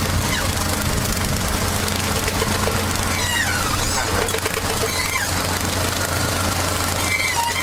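Engine of heavy farm machinery running steadily, with a constant low hum and a few short falling chirps over it.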